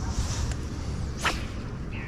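A fishing rod whipped through the air in a cast: one short, sharp swish a little over a second in, over a steady low wind rumble on the microphone.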